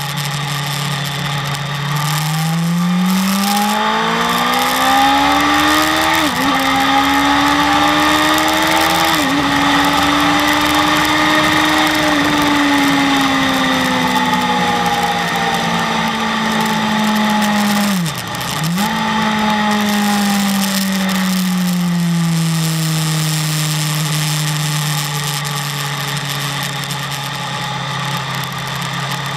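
BMW S1000RR's inline-four engine heard from on board at track speed. It revs up, with two quick upshifts a few seconds apart, holds high, then winds down as the bike slows, with a brief sharp drop in revs along the way.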